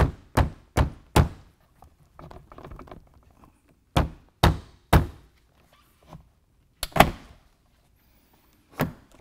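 A Jeep Wrangler half-door upper window frame being tapped down by hand so its two pegs seat into the door, a tight fit on first installs. The result is a series of sharp thunks: four in quick succession, then three, then a couple more spaced out near the end.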